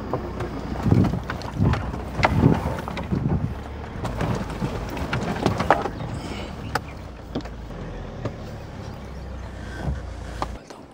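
Safari vehicle's engine running with a steady low rumble and wind on the microphone, with repeated sharp knocks and rattles during the first half. The engine rumble cuts off suddenly near the end.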